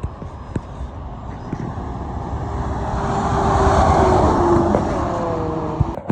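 A road vehicle passing close by: tyre and engine noise swelling to a peak about four seconds in, then fading as its pitch drops while it goes past.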